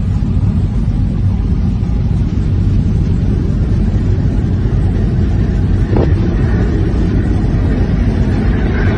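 Steady low rumble of wind on the microphone and a ship under way at sea, with a brighter rushing sound building near the end and a single click about six seconds in.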